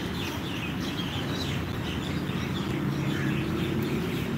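Small birds chirping: many short, quick high calls repeated throughout, over a steady low background rumble.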